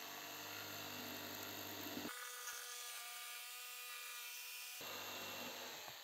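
Electric jigsaw running and cutting through a pine board, a steady buzzing whine. About two seconds in the sound abruptly thins to a steadier, higher whine, and the fuller cutting sound returns near the end before it stops suddenly.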